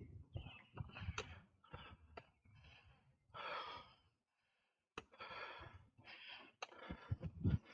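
A cyclist's heavy breathing while pedalling uphill: short, hard puffs of breath about once or twice a second, with one longer exhale near the middle, over a low rumble. The breathing breaks off for about a second just past the middle.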